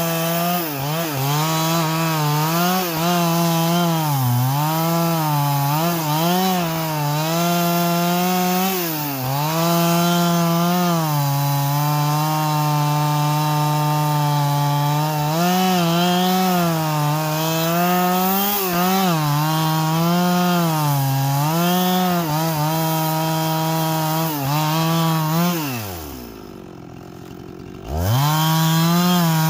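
Husqvarna 365 two-stroke chainsaw cutting through an old-growth larch stump at full throttle. The engine pitch dips repeatedly as the bar bogs in the wood, then recovers. Near the end the saw drops to idle for about two seconds, then revs back up.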